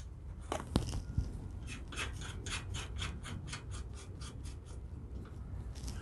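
Small metal hardware on a garage door extension spring's safety cable being worked by hand. A single sharp click under a second in is followed by an even run of short scraping clicks, about six a second, that fade near the end.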